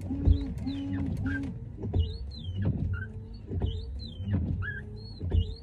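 Windscreen wiper blades squealing across the glass of a Volkswagen Polo, a high whine that rises and falls with each sweep, repeating about once a second with a dull knock at each stroke. The blades are new, and the owner blames the squeal on a cheap aftermarket KMK windscreen.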